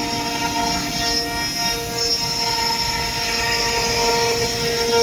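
CNC router spindles running with a steady high whine of several tones as a cutter machines a wooden door panel, over the rushing noise of the cut and the machine.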